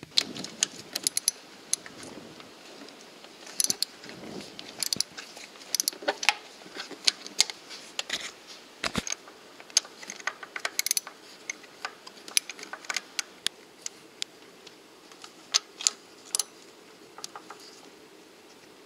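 Socket ratchet wrench clicking in short, irregular runs, with metal tools clinking against fittings on an aircraft engine.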